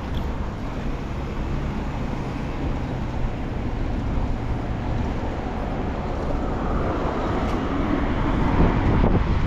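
City street traffic: a steady rumble of passing motor vehicles, growing louder near the end.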